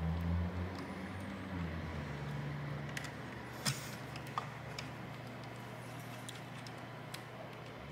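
Faint clicks and ticks of a small screwdriver and screws at a mini PC's metal rear port bracket, over a low steady rumble that swells in the first second or two.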